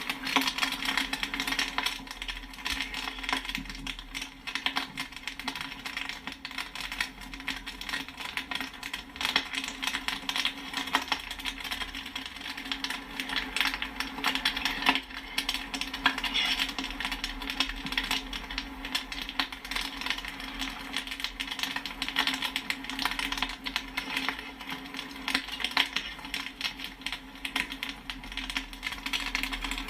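Popcorn kernels popping rapidly and continuously: a dense stream of sharp pops and pings with no let-up, over a steady low hum.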